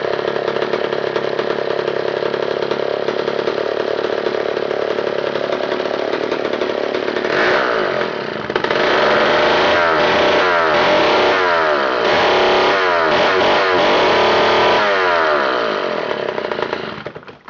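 Homelite 707G gear-drive chainsaw, a 5.8 cubic inch two-man-size saw from 1961, running steadily. From about seven seconds in, its engine speed rises and falls over and over, then the sound fades away near the end.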